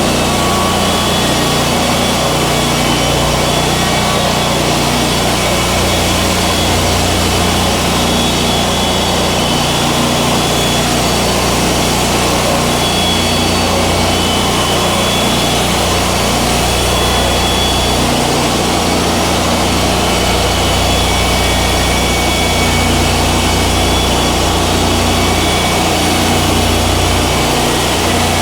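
Wood-Mizer LT40 hydraulic band sawmill running steadily, its band blade sawing through a yellow pine log over a constant low engine hum.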